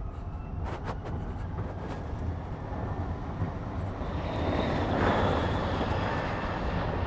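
Drayson B12/69EV electric racing car passing at speed: a high whine from its electric drivetrain over tyre and wind noise, swelling to its loudest about five seconds in and then easing as it pulls away.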